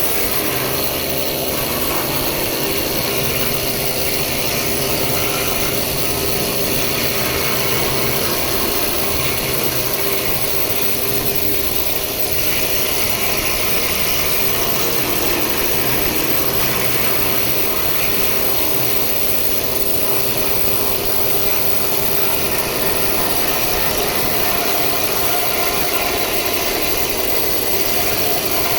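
Pneumatic needle guns hammering continuously, chipping old paint off steel plate: a loud, steady, rattling racket.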